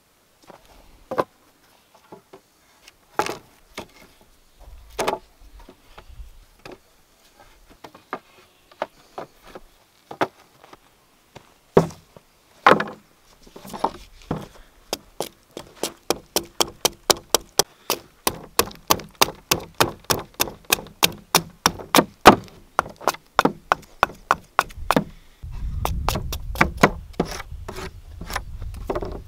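Scattered wooden knocks and clatter of split poles and boards being handled, then a fast, regular run of sharp strikes on wood, about four a second, as a small wooden block is chopped and trimmed with a hatchet. A low rumble comes in near the end.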